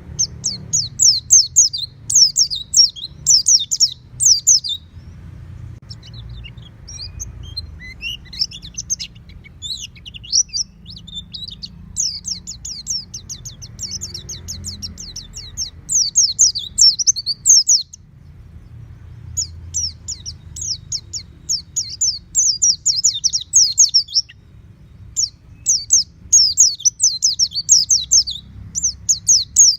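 White-eye (pleci) singing a rapid, high twittering song in long bouts of quick downward-sweeping notes, with short pauses between bouts, a kind of song played to train pet white-eyes to sing fully. A faint low hum runs beneath.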